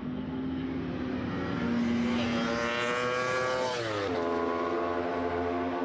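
Racing motorcycle engine at high revs on a track, its pitch climbing for about a second and a half, then dropping sharply about four seconds in.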